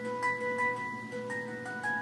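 A Samsung Galaxy S4 ringtone playing: a melody of struck, bell-like electronic notes, each held so that it rings on under the next.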